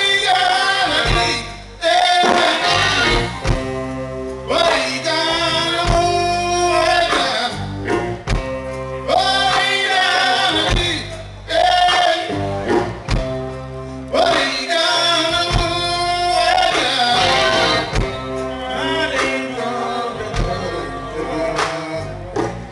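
A live band playing: a man singing in phrases a few seconds long over electric guitar and drum kit.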